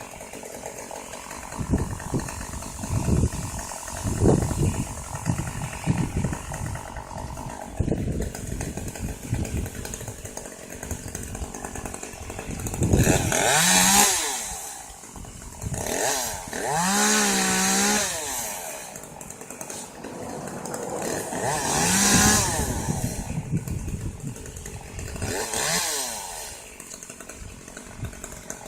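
Chainsaw revving up and down in four loud bursts in the second half, its pitch rising and falling each time. Before that comes a run of low thuds.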